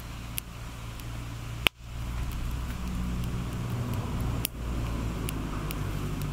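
Split kindling burning in a small metal fire pit, crackling with scattered sharp pops and one louder snap a little under two seconds in, over a steady low hum.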